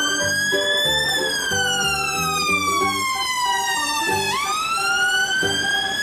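Emergency vehicle siren wailing from a fire and rescue van: a slow rise and fall in pitch, starting its climb again about four seconds in. Background music plays underneath.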